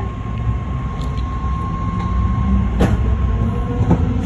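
BART Fleet of the Future train running on the track, heard from inside the cab: a steady low rumble with a thin steady whine that stops a little before three seconds in, then a single sharp clack.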